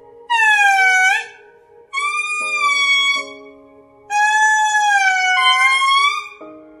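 Indri singing: loud wailing notes that slide down and up in pitch, three in a row with the last and longest lasting about two seconds, over fainter lower held notes.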